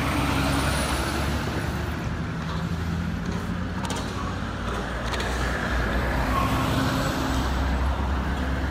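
Truck engine sound running steadily with a low rumble, laid over toy trucks that have no engine of their own, with a few faint clicks midway.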